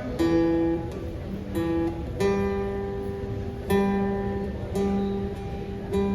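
Acoustic guitar strumming slow chords, each chord struck and left to ring for a second or so: the instrumental opening of a song, before the singing comes in.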